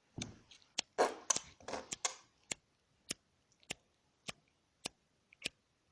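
Short rustling noises, then sharp single clicks at a steady pace of a little under two a second.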